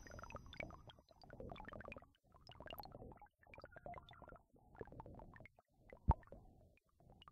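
Electroacoustic music made from treated field recordings: low rumbling noise chopped into roughly one-second fragments with short gaps between them, dotted with small clicks. One sharp click about six seconds in stands out above the rest.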